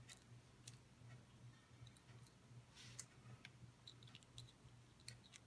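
Faint, irregular light clicks and ticks of empty clear pill capsules being pulled apart and handled on a tabletop while pepper seeds are picked up, over a steady low hum.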